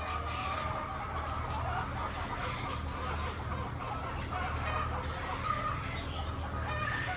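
A flock of laying hens clucking, many overlapping calls, over a steady low hum.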